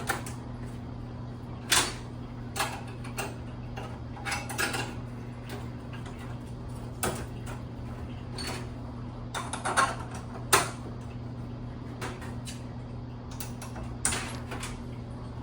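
Scattered clicks, clanks and knocks of hand work on metal hardware, sharpest about two seconds in and twice around ten seconds in, over a steady low hum.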